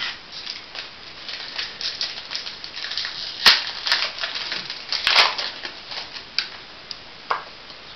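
Crinkling and rustling of a foil trading-card booster pack and cards being handled: a run of short crisp rustles with a few sharper snaps.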